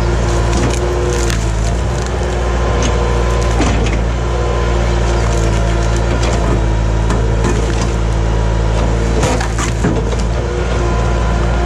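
Skid steer engine running steadily while wood cracks and snaps many times over, as the 4-in-1 clamshell bucket grabs and crushes logs and brush.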